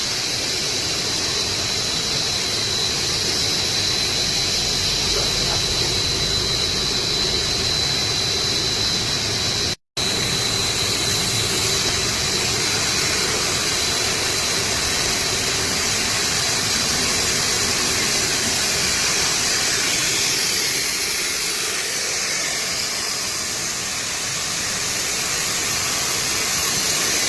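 Steady machinery noise from a filament extrusion line: a loud hiss with a constant high whine running through it. It breaks off for an instant near the middle.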